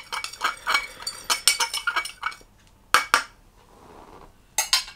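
A utensil clinking rapidly against a small glass as ketchup and hot sauce are stirred together, then a few separate taps near the end.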